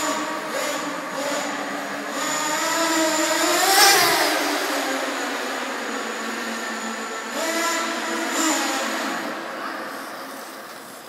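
Small nitro glow engine of a Kyosho Fazer RC car revving as it runs past, its pitch climbing to a peak about four seconds in and dropping, rising again around eight seconds, then fading. The sound echoes off the concrete of an underground car park.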